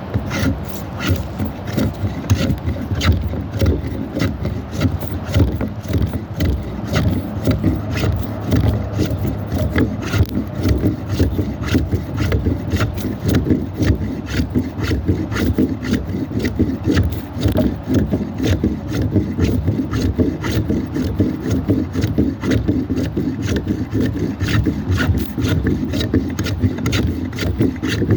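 Handmade block plane shaving wood in quick repeated strokes, about two to three a second, each a short rasping scrape.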